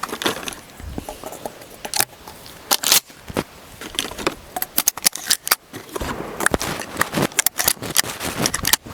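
Shotgun shells being handled and loaded: irregular small clicks and rattles of shells and gun metal, with no shot fired.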